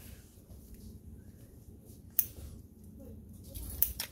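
Two sharp plastic clicks from a toy mini pool table's balls and cue, one about two seconds in and another near the end, over a faint low rumble.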